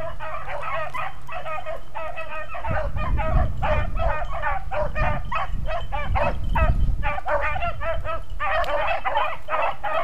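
A pack of beagles in full cry: many overlapping short baying calls in quick succession, the sound of hounds running a rabbit's track. A low rumble joins about three seconds in.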